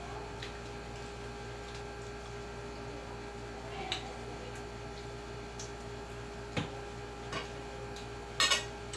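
Occasional clinks of cutlery and dishes during a meal, with a quick double clatter near the end, over a steady electrical hum.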